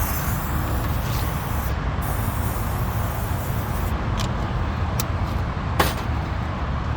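Steady low rumble like a vehicle or traffic running nearby, with a few sharp clicks, the loudest near the end.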